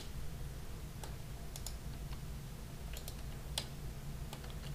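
About half a dozen scattered clicks from a computer keyboard and mouse, spaced irregularly, over a steady low hum.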